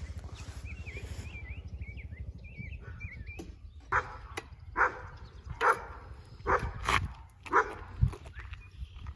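A small motorcycle engine runs steadily in the background with birds chirping. From about four seconds in, a dog barks repeatedly, roughly once a second.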